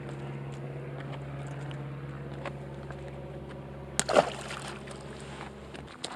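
A steady low motor hum, then about four seconds in a single loud splash as something hits the water near the bank.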